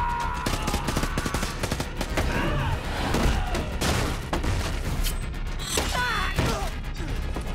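Action-film fight sound effects: gunfire mixed with heavy blows, thuds and crashes, many sharp hits in quick succession.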